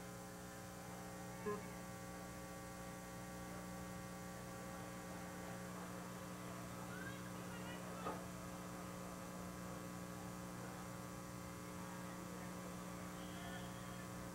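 Steady electrical mains hum, with two faint knocks, one about a second and a half in and one about eight seconds in.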